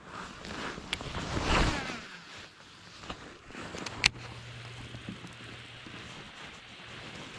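Handling noise from a baitcasting reel and rod held close to the microphone: a rustling swell early on, then a sharp click about four seconds in, followed by a low steady hum for a couple of seconds while the reel handle is turned.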